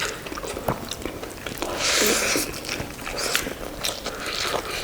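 Close-miked chewing and biting of boiled buffalo innards: many short wet clicks and crunches, with a brief hissing noise about two seconds in.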